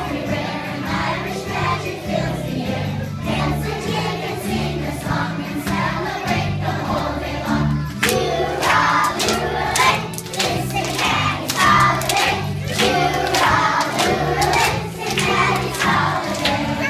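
A group of young children singing along to a recorded song with a stepping bass line. Sharp beats join from about halfway.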